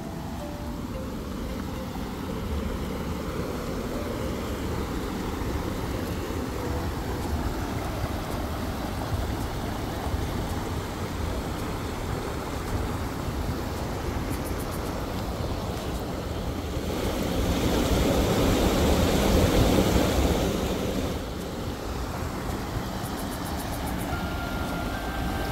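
Steady road noise of a vehicle driving, a low rumble with a louder rushing swell about two-thirds of the way through.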